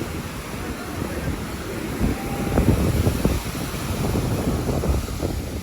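Wind buffeting the microphone in uneven gusts over the steady wash of ocean surf on the beach.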